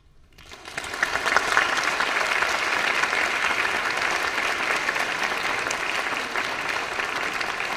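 Audience applauding, rising out of a brief hush about half a second in and then holding steady.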